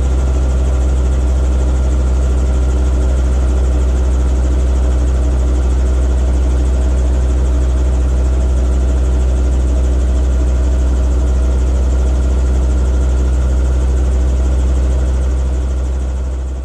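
Robinson R22 helicopter's piston engine and rotor running steadily, heard from inside the cabin, with a strong low drone. The sound fades out near the end.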